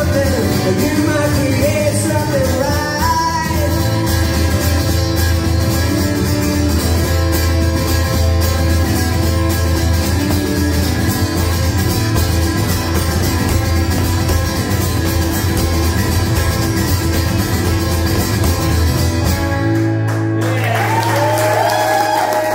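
Amplified electro-acoustic guitar strummed steadily through a PA, with a short sung line at the start, building to a final chord that rings out about twenty seconds in. Audience applause and cheers break out just after it.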